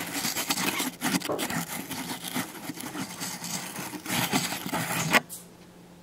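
Close handling noise on the camcorder: a lens rubbing and scraping as it is fitted. It stops suddenly about five seconds in.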